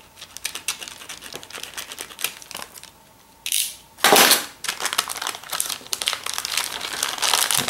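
Crinkling and rustling of packaging as a new replacement laptop screen is unwrapped, with irregular crackles throughout and a louder rustle about four seconds in.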